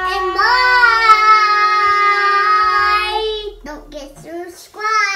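A young girl and a woman singing one long, drawn-out note together, the second voice joining with an upward slide. About three and a half seconds in the held note breaks off into a few short vocal sounds.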